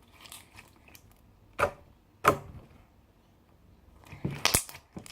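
A few sharp knocks of hard objects being handled: single ones about a second and a half and two seconds in, then a quick cluster of knocks near the end.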